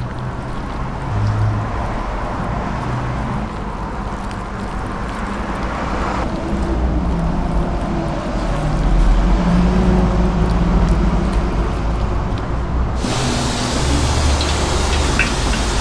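Batter-coated vegetable strips being hand-mixed in a steel bowl over a low, steady background rumble. Near the end a bright hiss of hot oil sizzling starts as battered fritters go into the fryer.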